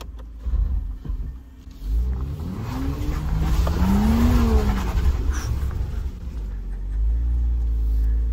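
Mercedes-Benz G-Class engine heard from inside the cabin, its revs rising and then falling once in the middle as the SUV works over a steep cobbled off-road slope. A steady low rumble runs underneath and grows louder near the end.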